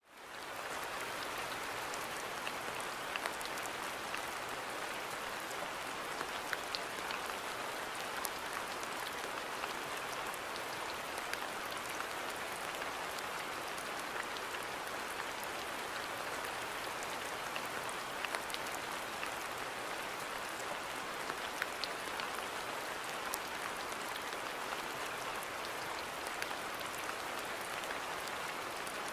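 Steady rain falling on a garden: an even hiss with scattered individual drops ticking on surfaces, fading in at the start.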